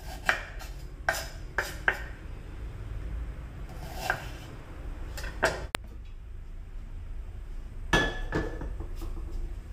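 Knife slicing ginger on a wooden cutting board: about half a dozen separate cuts at an irregular pace over the first half. About eight seconds in, a stainless steel saucepan is set down on a gas hob's metal grate with a clank and a short ring.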